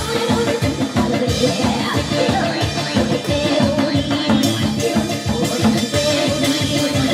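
Janggu hourglass drum and cymbal struck with sticks in a dense, driving rhythm, with music and some singing over it.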